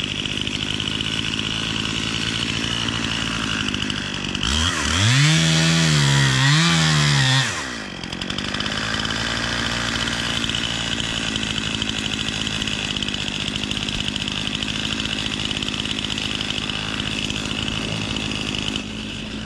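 Chainsaw cutting through a log: a steady running sound, with a louder stretch about five to seven seconds in where the engine pitch rises, dips and rises again before falling back.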